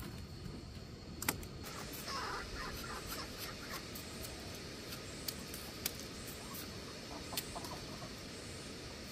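Sharp clicks and knocks of a machete blade working a bamboo pole, with poultry calling briefly about two seconds in.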